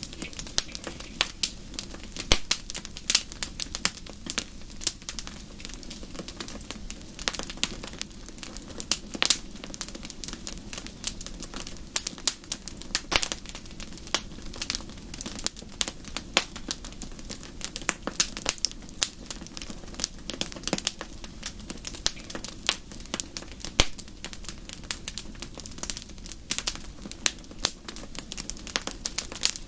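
Wood fire crackling in a fireplace: a steady stream of irregular sharp pops and snaps over a low, even rumble of the flames.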